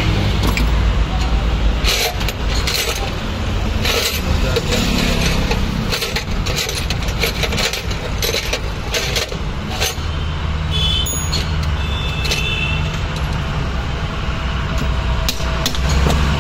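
Scattered metal clinks and knocks of hand tools and starter-motor parts being picked up, handled and set down on a workbench while the starter motor is stripped, over a steady low rumble.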